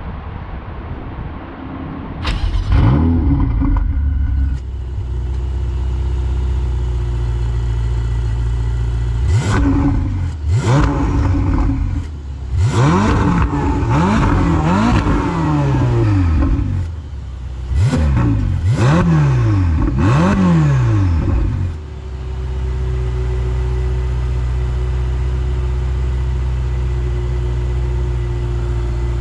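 Ferrari 488 GTB's twin-turbocharged V8 starting up with a sharp flare of revs about two seconds in, then idling. It is revved in three bursts of quick throttle blips, the pitch rising and falling with each one, and near the end it settles back to a steady idle.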